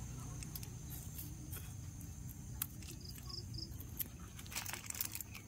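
Outdoor ambience: a steady high-pitched insect trill under a low rumble, with scattered clicks and three quick high chirps a little after three seconds in.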